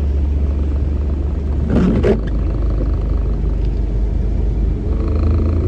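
A car's engine and road noise making a steady low rumble as it drives through high flood water, with a brief louder burst about two seconds in.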